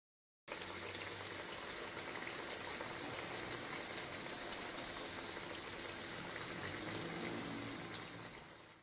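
Oil bubbling and sizzling in a pan as banana cue fries, the bananas coated in caramelizing sugar. It starts abruptly about half a second in and fades out near the end.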